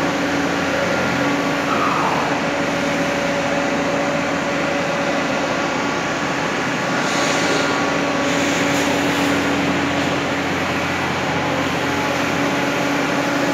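Steady mechanical drone: a constant low hum over an even rush of noise, with a short falling tone about two seconds in.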